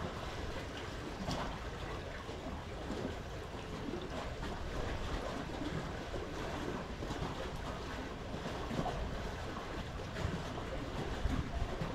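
Steady outdoor background noise with a low rumble and no distinct calls.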